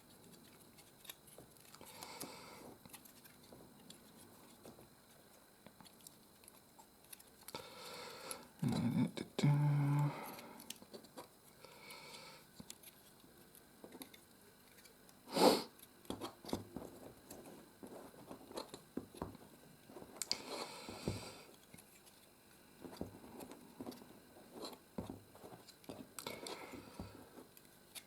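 Faint handling noise of LEGO bricks and thin LED light-kit wires being twisted and fitted by hand: scattered small plastic clicks and rustles, with one sharp click about fifteen seconds in.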